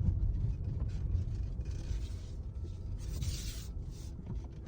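Opel Astra driving over a rough, potholed road, heard from inside the cabin: a steady low rumble of tyres and running gear. No knocks or squeaks come from the freshly repaired suspension.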